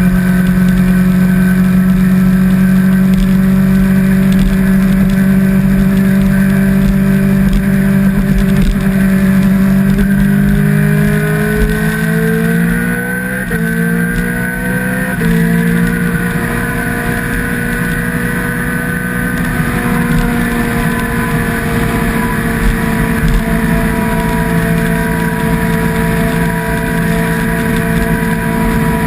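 Sport motorcycle's inline-four engine running steadily at cruising speed. About ten seconds in, the engine note rises, steps twice as the gears change, then settles into a steady, slightly quieter run.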